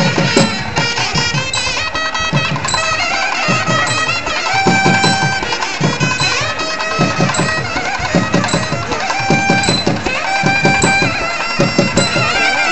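Temple band of nadaswaram and thavil playing: a reed melody with wavering, ornamented notes, over thavil drum strokes that come in quick runs.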